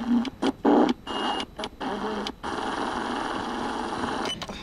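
Portable radio giving only static hiss, broken by several brief cutouts in the first two seconds and a short whistle about a second in. It is held against a failed LED bulb's switch-mode driver board to pick up switching interference, and none comes through: the driver is dead.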